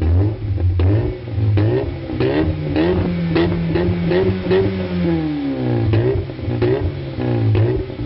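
VW Golf Mk3 engine free-revving while stationary, heard at its twin-tip exhaust. It is blipped in quick repeated bursts, held up near 5,500 rpm around the middle, then drops back to about 3,000 rpm before more short blips.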